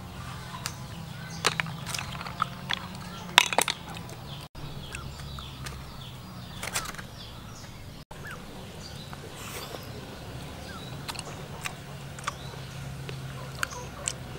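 Cooked snail shells clicking and tapping as they are handled and the meat picked out, a scatter of sharp clicks loudest a few seconds in, over a steady low hum.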